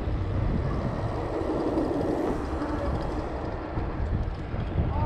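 Wind rushing over the microphone and a BMX bike's tyres rumbling on asphalt while it coasts fast downhill, a steady noisy rumble.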